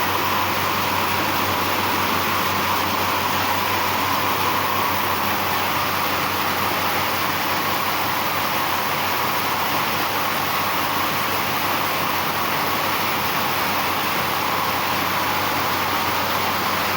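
A machine running with a steady, even whir and a faint low hum, unchanging throughout.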